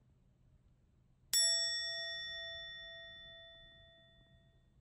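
A single struck bell tone, a comedic 'chiin' sound effect marking an awkward moment, hitting about a second in and ringing out slowly over some three seconds with a slight waver in its lowest note.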